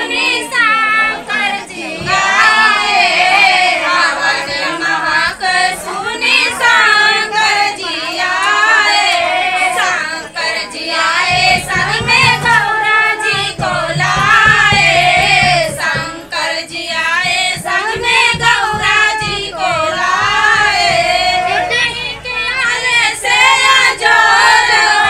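Women singing a havan geet, a Hindi devotional folk song sung during a havan fire ritual, with no instruments clearly heard.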